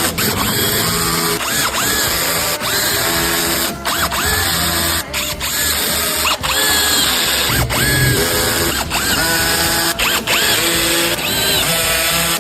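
Loud background music: buzzy, gliding synth notes over a steady repeating bass beat.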